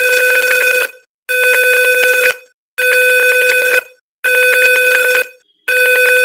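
Simulated piezo buzzer driven by an Arduino's tone() function at 500 Hz, giving a steady buzzy beep. It sounds in stretches of about a second and cuts out briefly four times, as the simulated gas-sensor reading crosses the LPG alarm threshold.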